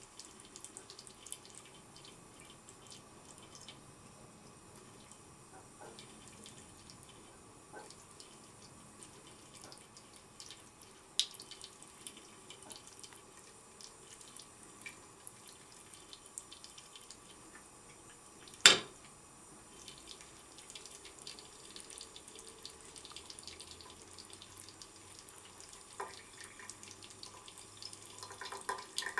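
Water running steadily from a tap, with scattered small taps and splashes. One sharp knock comes about two-thirds of the way through and is the loudest sound.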